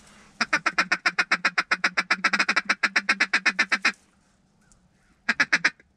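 Duck call blown in a rapid, even run of about thirty quacks lasting some three and a half seconds, then a short burst of a few more near the end, calling to incoming ducks.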